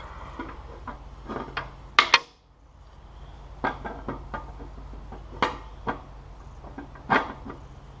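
Zero-clearance table saw insert being worked down into the saw's throat opening by hand: scattered knocks and clicks, the loudest about two seconds in, as the snug insert seats.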